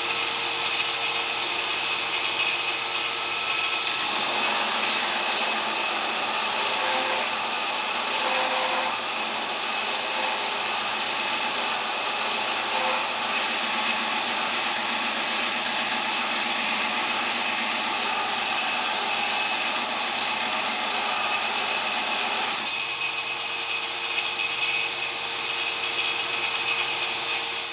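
Variable-speed belt grinder running, with a steel-and-copper damascus billet pressed against the belt from about four seconds in until about twenty-three seconds in, a loud steady grinding noise, while the billet is ground open to show its layers. Before and after, the motor and belt run without load.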